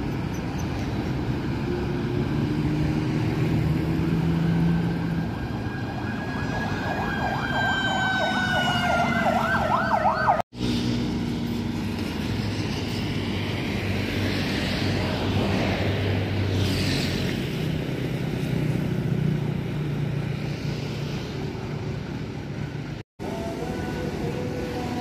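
Road traffic with heavy engines and motorcycles running by. A warbling, siren-like horn sounds for about four seconds and cuts off suddenly about ten seconds in.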